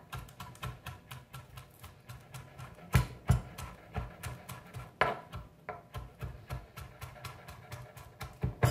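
Chef's knife chopping chives on a plastic cutting board: a quick, even run of light taps, with a few louder knocks about three seconds in, at five seconds and near the end.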